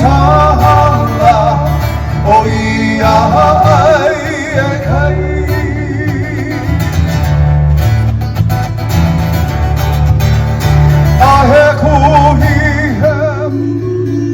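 Live Hawaiian band music: a singer with a wavering vibrato over plucked guitars and a steady bass line. The singing drops back for a few seconds in the middle while the guitars carry on.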